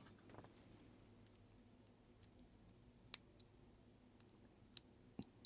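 Near silence with a few faint, sharp clicks spread out over several seconds, the loudest near the end: small watch module parts and tools being handled on a work surface.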